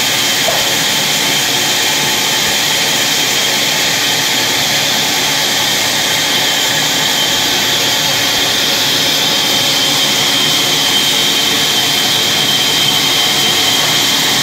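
Log bandsaw running steadily with no log in the cut: an even rushing noise with a constant high whine.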